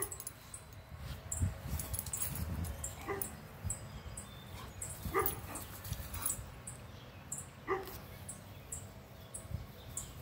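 Two dogs at play, with a few short barks spaced two to three seconds apart.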